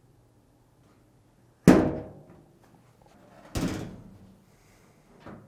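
Dryer's sheet-metal top cover being set onto the cabinet and pushed into place: two metal thunks about two seconds apart, the first louder and ringing briefly, then a light knock near the end.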